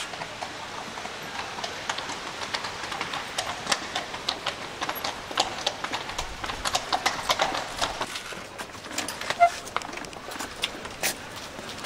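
Horses' hooves clip-clopping on pavement, an irregular clatter of hoof strikes from horses drawing a carriage.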